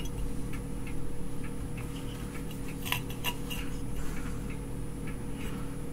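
A steady low electrical hum with light ticks about twice a second. A few louder clicks come about three seconds in.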